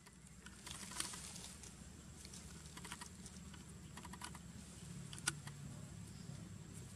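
Dry leaf litter crackling and rustling in scattered light clicks as a baby macaque picks through it with its hands, with one louder click about five seconds in.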